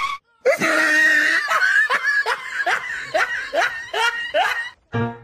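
A person laughing in a run of about eight falling-pitched bursts, one roughly every half second, stopping shortly before the end.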